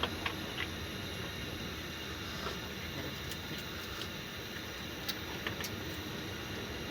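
Steady outdoor rushing noise, with a few faint clicks near the start and again a few seconds in.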